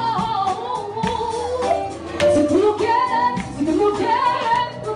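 A woman singing an English-language pop song over backing music.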